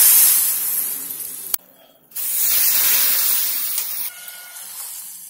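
Hot ghee tempering of cumin, mustard seeds and asafoetida sizzling loudly as it hits the boiling tomato rasam. The hiss cuts off sharply about a second and a half in. A second loud burst of sizzling follows half a second later and dies down gradually.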